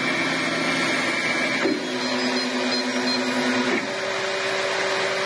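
MakerBot Replicator 2 3D printer running a print: its stepper motors whine in steady tones that jump to a new pitch twice as the moves change, over a steady mechanical whir.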